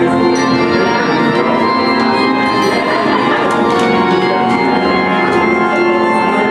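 Organ playing sustained chords: the closing voluntary at the end of a church service.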